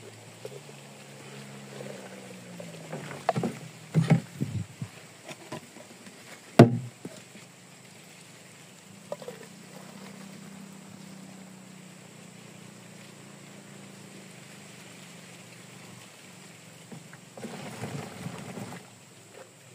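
Tuak (palm wine) being poured from a plastic jerrycan and a plastic jug into plastic containers and a bottle, with a low steady sound of the liquid running. Plastic containers knock and clunk several times in the first seven seconds, the loudest a sharp knock about six and a half seconds in.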